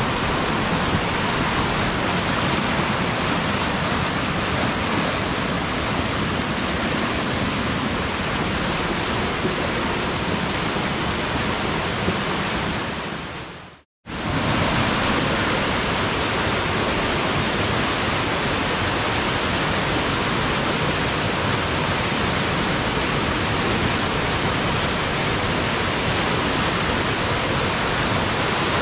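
Flood-swollen creek in spate: a loud, steady rush of fast muddy water. The rush fades and drops out for a moment about halfway through, then comes straight back at full level.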